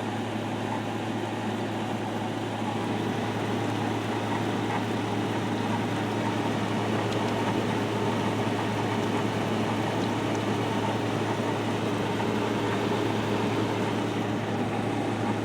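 2020 GE 5,000 BTU R32 window air conditioner running on high, max cool, just after startup: steady compressor hum under the rush of the fan. The refrigerant is quite loud as it first starts circulating.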